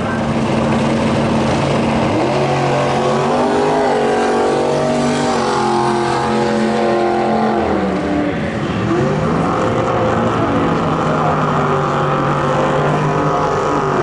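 Several race-car engines running at once, their tones rising and falling as they rev; about two-thirds of the way through, one drops in pitch and then climbs again.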